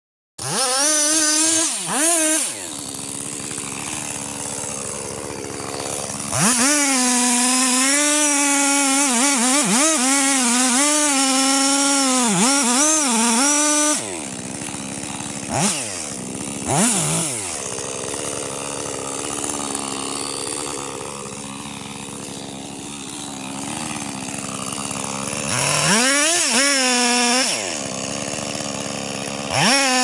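Petrol two-stroke chainsaw cutting through a large tree trunk, its engine revving up to full throttle in long bursts and dropping back to a lower, quieter pitch between them, with a couple of quick throttle blips.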